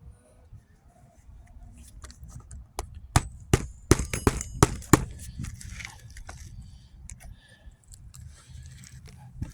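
Hammer driving roofing nails through an asphalt shingle: a few light taps, then a quick run of about six sharp blows, roughly three a second, followed by scattered small knocks and scrapes.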